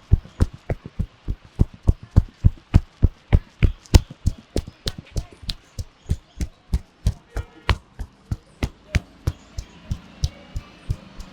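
Rapid rhythmic thumps of a barber's hands striking in a percussive massage, about three to four blows a second, growing lighter near the end.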